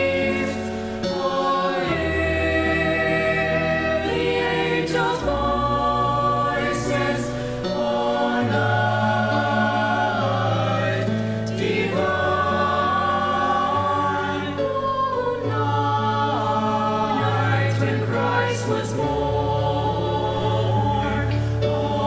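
Mixed high school choir of boys and girls singing a Christmas carol together in several parts.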